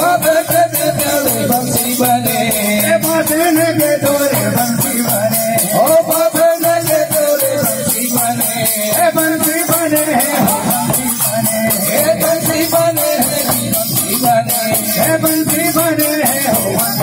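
Adivasi folk dance music: a sustained, wavering melody carried over barrel-drum beats, with a fast, even high jingle running throughout.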